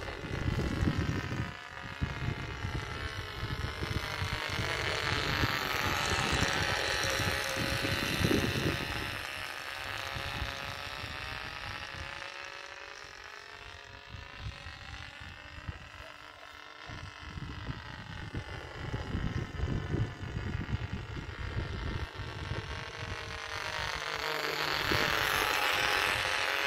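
Mills .75 replica 0.75 cc single-cylinder diesel model engine running in flight on an RC model plane. It makes a steady high buzz whose pitch bends up and down and which swells as the plane comes near, about a quarter of the way in and again near the end, and fades in between.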